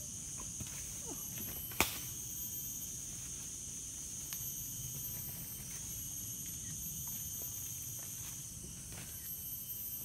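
Rainforest insects droning steadily at a high pitch, with a single sharp click just under two seconds in.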